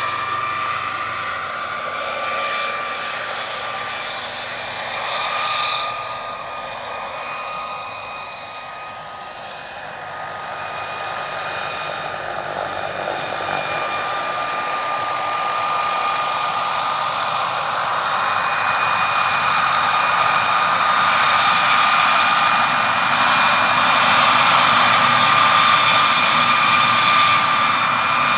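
Turbine-powered EC135 scale model helicopter in flight: the steady high whine of its model turbine engine over the rotor noise. It fades a little as the helicopter flies off about a third of the way in, then grows louder as it comes in low and hovers close.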